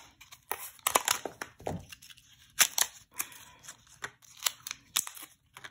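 Plastic blister packaging crackling and clicking as a lip balm is pried out of its card backing: an irregular run of sharp clicks and crinkles with short pauses.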